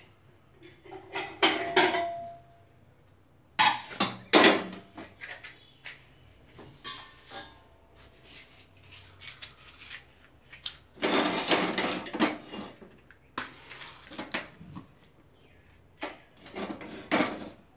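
Metal cookware clattering: pots and utensils knocked and rattled in several separate bursts, with a longer stretch of rattling and scraping partway through and one brief ringing note near the start.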